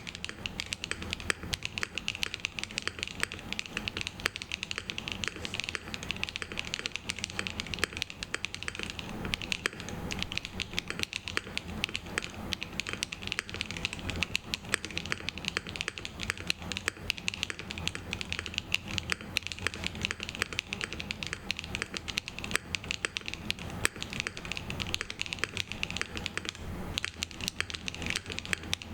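Continuous typing on a Rule60 V3 custom mechanical keyboard: BSUN Taichi switches with polycarbonate tops and nylon bottoms, a polycarbonate plate and MW Aschente keycaps. Keystrokes clack in a dense, steady run of several a second.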